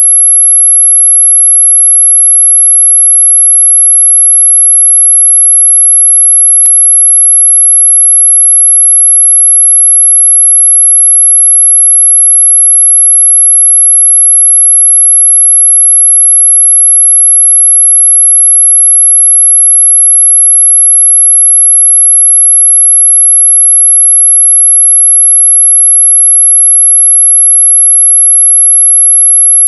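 A loud, steady, very high-pitched pure electronic tone held without a break, played as a mosquito-repelling sound. A faint click about seven seconds in.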